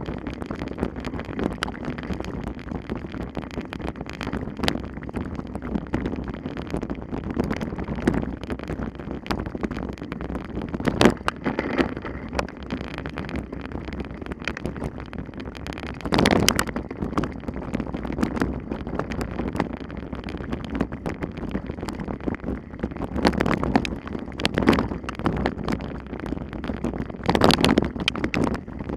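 Wind buffeting the microphone, with many sharp clicks and rattles throughout and several louder gusts.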